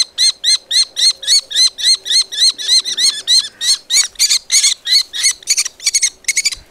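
Common kestrel chick giving a fast, unbroken series of shrill kee calls, about five a second, while being handled.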